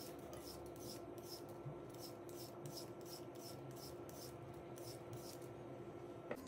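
Vegetable peeler scraping strips of skin off a cucumber in quick, regular strokes, about two or three a second, that stop near the end, followed by a single sharp click.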